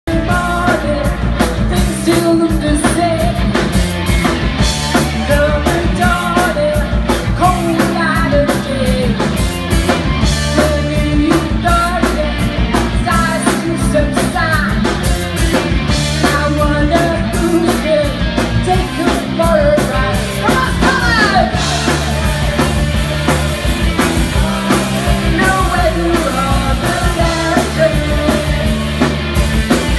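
Live rock band playing: a woman singing lead over electric guitars, bass guitar and a drum kit, with a steady driving beat.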